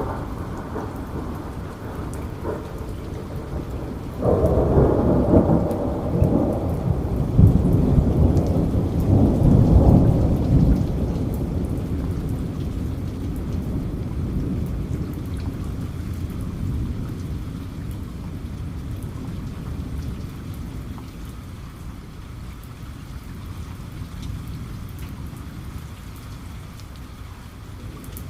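Steady rain, with a thunderclap about four seconds in that rumbles loudly for several seconds and then slowly rolls away.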